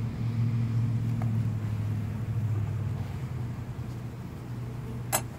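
A steady low hum that weakens after about three seconds, then a single sharp knock near the end.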